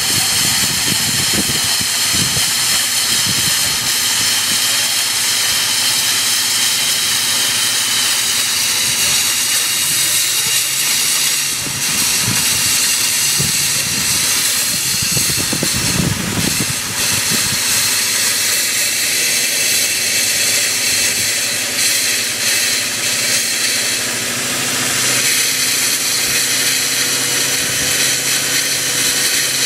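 Pontiac Grand Prix GT's 3.8-litre V6 idling, with a steady loud hiss of air and Seafoam being sucked into an open vacuum line. The engine stalls without a finger over the line. The idle rises slightly in the last few seconds.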